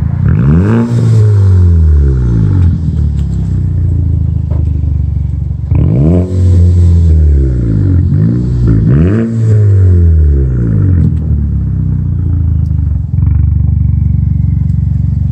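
2017 Volkswagen Jetta's turbocharged 1.8 TSI four-cylinder engine through a muffler-delete exhaust, free-revved three times while standing. Each rev rises quickly and falls back, then the engine settles to a steady idle for the last few seconds.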